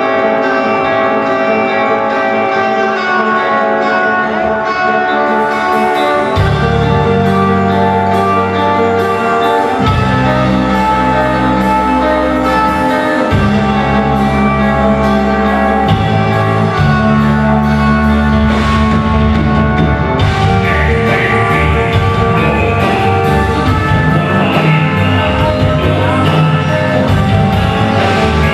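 Rock band playing live, with guitars holding sustained, ringing chords; a bass comes in about six seconds in, playing long held notes that change every few seconds.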